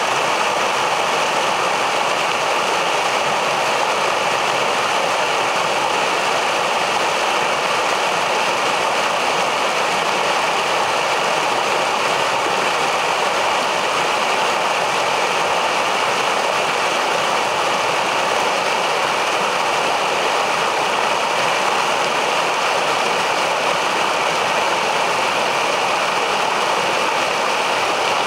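Metolius River whitewater rushing over rocks in a small rapid, a steady, even rush of water.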